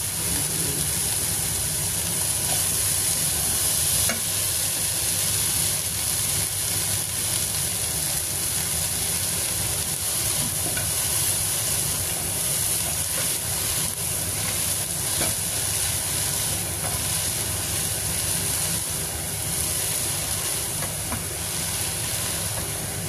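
Sliced white cucumber stir-frying with ginger and dried shrimp in a hot pan: a steady sizzle, with stirring strokes now and then.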